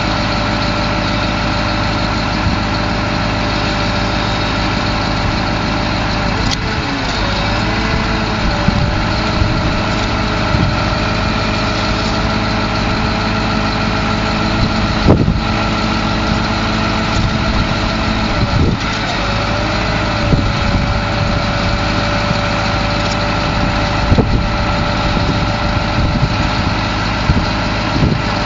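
Detroit 8.2-litre V8 diesel engine idling steadily. Its pitch sags briefly twice, with a few sharp knocks along the way.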